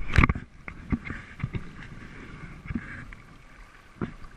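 Kayak paddling on calm water: light splashing and dripping from a wooden paddle with scattered small taps. A quick cluster of knocks and handling bumps comes right at the start, and one more knock about four seconds in.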